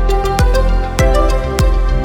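Background music: an electronic track with a steady kick-drum beat and sustained synth notes.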